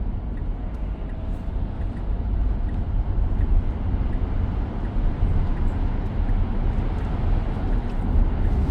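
Steady road noise inside the cabin of a moving 2023 Tesla Model X: a low tyre and wind rumble with no engine sound, since the car is electric.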